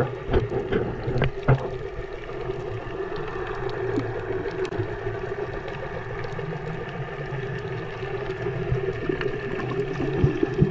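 Underwater sound through a submerged action camera: a steady muffled hum over a low watery rumble, with a few sharp clicks and knocks in the first two seconds.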